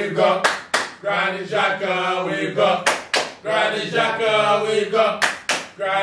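Several men singing a football chant together, in sung phrases with held notes, with a few sharp hand claps between the phrases.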